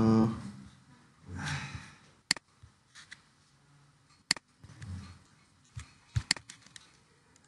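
Computer mouse clicks: a few sharp clicks about two seconds apart, with fainter clicks between them and two soft hisses.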